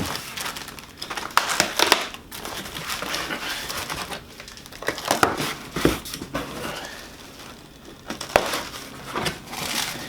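Packaging crinkling and rustling as the supercharger kit's intercooler is unwrapped by hand, with irregular sharp crackles.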